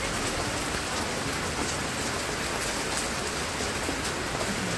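Steady monsoon rain falling without a break: an even, dense hiss with scattered drop ticks.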